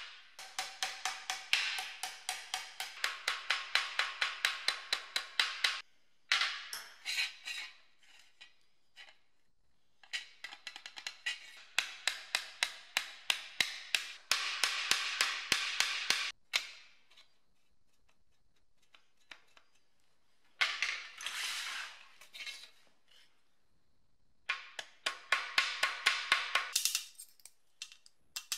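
Small hammer tapping rapidly on a bare metal plate lying on a steel welding table, flattening it: bursts of quick, ringing metallic taps a few seconds long, separated by short pauses. Near the end the hammer strikes a punch held on a small round part.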